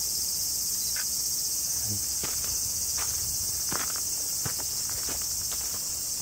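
A steady, high-pitched insect chorus fills the air. Scattered footsteps and light crackles come through the undergrowth in an irregular series.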